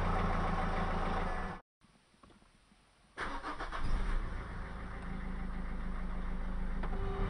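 Renault Megane 1.5 dCi four-cylinder turbo diesel idling, cut off abruptly about a second and a half in. After a short near-silence the engine is cranked and starts about three seconds in. It flares briefly, then settles to an even diesel idle at about 1,000 rpm.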